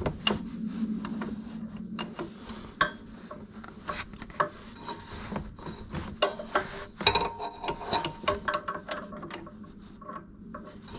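Hands and a tool working on hydraulic hose fittings in a mini excavator's engine bay: scattered clicks, knocks and rubbing of hoses in their plastic wrap, with a few short metallic clinks about two thirds of the way through as a fitting is tightened.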